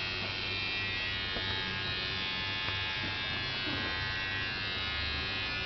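Electric hair clippers running steadily with an even buzz during a buzz cut.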